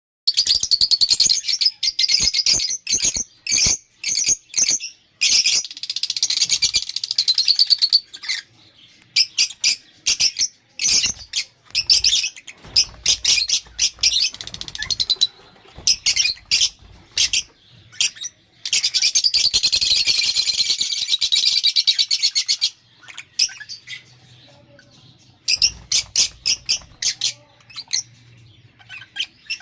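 Lovebirds chirping in rapid high-pitched chatter, with several-second runs of continuous chatter broken by pauses and quick single chirps.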